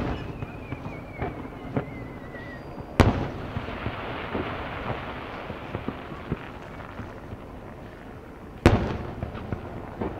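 Aerial firework shells bursting: a sharp bang at the start, another about three seconds in followed by a few seconds of hissing crackle, and a third bang near the end, with smaller pops in between.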